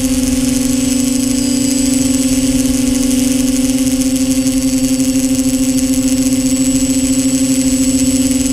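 A drone's electric motors and propellers humming steadily at one pitch while it hovers, with a faint high whine above, picked up by the drone's own camera.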